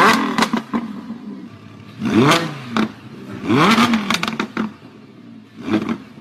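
Logo intro sound effects: several swelling sweeps that rise and then fall in pitch, mixed with sharp glitchy clicks and crackles.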